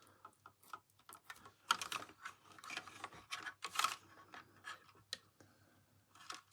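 Irregular clicks and taps of small parts, wires and tools being handled on a workbench, some in quick clusters.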